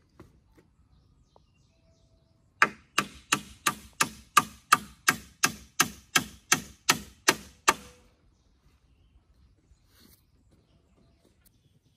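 Hammer driving a nail into a wooden pole frame: a steady run of about sixteen sharp strikes, roughly three a second, lasting about five seconds.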